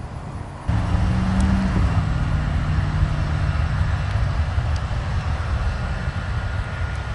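Bombardier CRJ regional jet's rear-mounted turbofan engines running with a steady low rumble and a faint steady whine as it rolls away down the runway. The rumble starts suddenly under a second in, at a cut from quieter wind noise.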